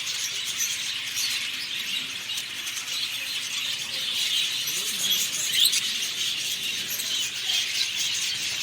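A flock of budgerigars chirping and chattering continuously, a dense, high twittering with no pauses.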